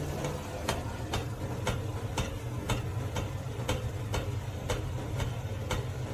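Regular ticking, about two sharp ticks a second, over a steady low hum.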